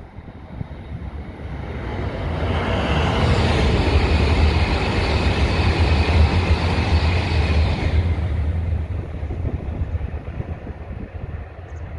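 E7-series Shinkansen train passing at speed: a rush of wheel, rail and air noise with a deep rumble. It swells over the first couple of seconds, is loudest from about three to eight seconds in, then fades away.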